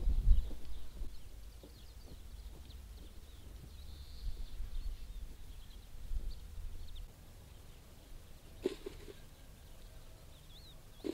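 Small birds chirping in short, repeated calls, over a low rumble that fades out after about seven seconds. Two short knocks come near the end.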